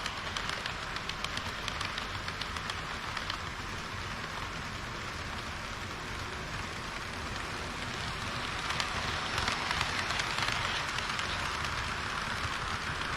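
HO-scale model train running along the layout track: a steady rushing rolling noise from the wheels and drive with many fine clicks, louder for a few seconds past the middle.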